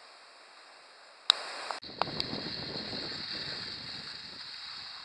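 Wind rushing on the camera microphone, louder and gustier after about two seconds, with sharp clicks about a second and two seconds in where the recording is cut.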